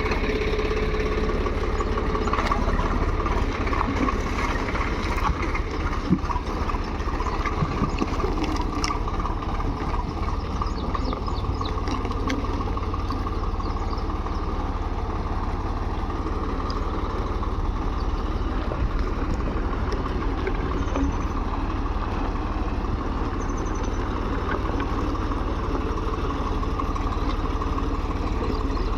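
Tractor engine running steadily at a constant speed, with a few faint clicks and knocks over it.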